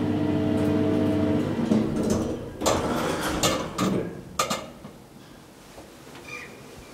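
Hydraulic lift's pump motor humming steadily, cutting off about a second and a half in as the car arrives. Then come a few clunks and rattles from the lift doors opening, followed by faint background.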